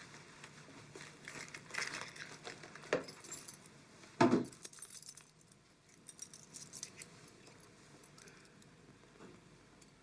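A bunch of keys on a key ring jingling and clicking as they are handled and sorted through, with cloth rustling from a jacket being searched and one short thump about four seconds in.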